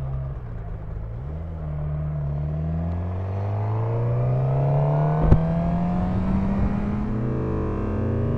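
Suzuki GSX-R600's inline-four engine pulling away from low speed, its revs climbing in a long steady rise. There is one sharp click about five seconds in. Near the end the pitch drops and starts climbing again.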